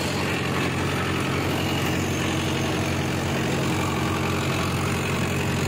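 Tractor diesel engine running steadily in low first gear, driving a PTO tillage implement at 540 rpm that is lowered to full working depth.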